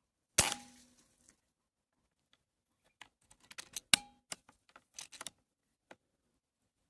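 Beeman 1336 air rifle firing once, a sharp crack with a brief metallic ring, followed a few seconds later by a quick run of sharp metallic clicks and clinks, one of them loud.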